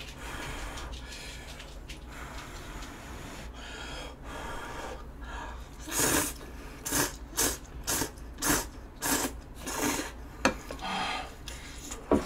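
A person slurping ramen noodles in a run of loud, quick pulls, about two a second, starting about halfway through.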